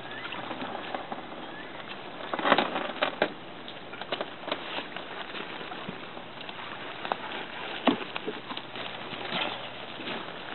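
Footsteps crunching on loose beach pebbles: irregular clicks and crunches, loudest about two and a half seconds in and again near eight seconds.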